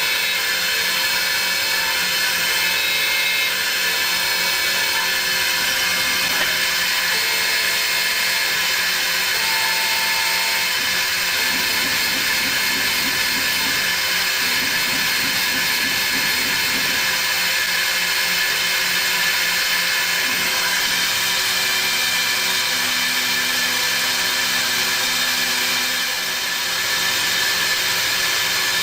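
CNC lathe running: a steady mechanical noise with a strong hiss and several steady tones held throughout.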